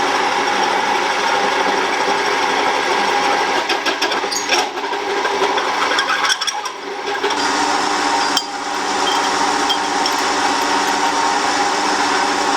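Small milling machine running, its motor and spindle humming steadily while an end mill drills holes for subframe mounts. A few clicks come near the middle, and the sound drops a little after about eight seconds.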